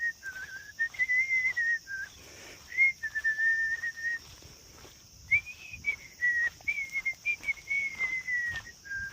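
A person whistling a tune in held notes with small slides between them, over a steady high drone of insects.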